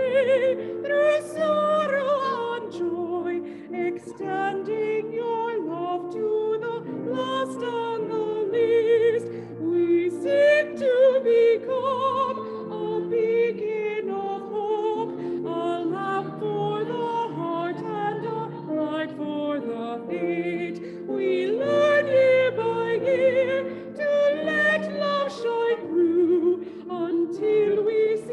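A hymn sung by a woman with a wide vibrato, over sustained instrumental accompaniment.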